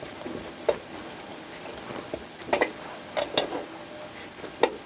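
Hands pressing and adjusting sphagnum moss packed around an orchid in a glass bowl: soft rustling of the moss with a handful of light clicks and taps against the glass.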